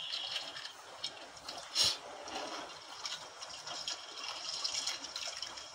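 Seawater sloshing and splashing against the hull of a small wooden outrigger boat, with one sharp knock about two seconds in.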